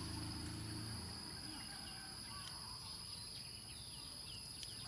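Outdoor ambience: a steady high insect drone with short bird chirps scattered through it, and a low hum that stops about a second in.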